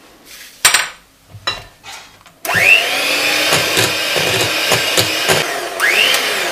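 A few knocks, then an electric hand mixer switched on about two and a half seconds in, its whine rising as the motor spins up; it runs steadily in cake batter with the beaters knocking against the glass bowl, and spins up again near the end.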